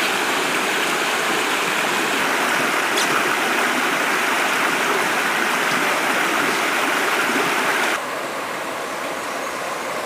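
Mountain stream running over rock ledges: a steady rush of water that drops suddenly to a lower level about eight seconds in.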